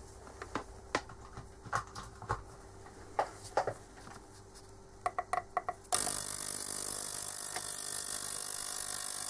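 A few scattered light clicks, then a quick run of clicks, and about six seconds in an ultrasonic cleaner switches on with a sudden, steady hissing hum. It is cleaning the parts of a Delphi common-rail injector control valve in its bath.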